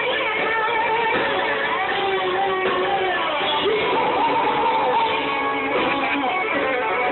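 Live rock band playing, with an electric guitar lead bending and wavering over the band, heard through a phone recording.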